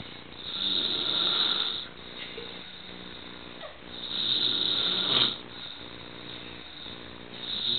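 A sleeping man snoring through an open mouth: two loud snores about three and a half seconds apart, with a third starting near the end, and quieter breathing between them.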